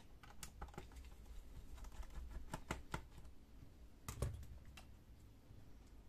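Faint, irregular small clicks and taps of a screwdriver working a small screw out of a laptop's plastic bottom case, with one louder knock about four seconds in.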